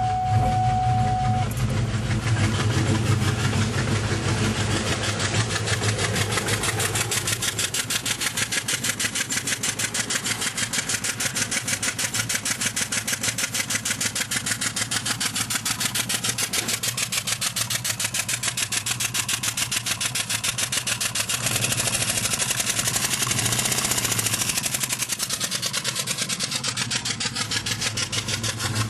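Ford Mustang engine idling just after start-up, with a rapid, evenly spaced ticking running through the idle: the unexplained noise the owner is asking about. A steady tone sounds for about the first second and a half.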